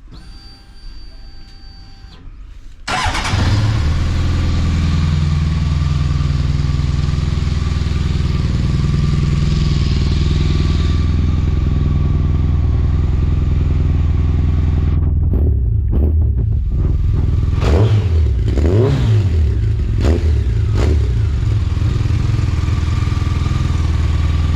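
Honda CBR1100XX Blackbird's inline-four, fitted with new Black Widow aftermarket silencers, starting about three seconds in and then running steadily at idle. It is revved with a few short throttle blips, rising and falling, about two-thirds of the way through.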